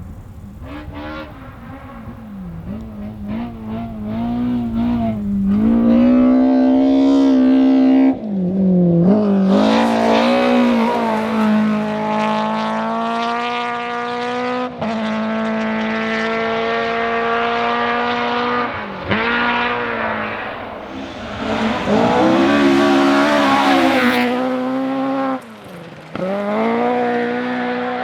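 Historic rally car engine at high revs on a special stage, coming closer and going hard through the gears. Its note climbs, drops sharply several times at gear changes or lifts, then climbs again.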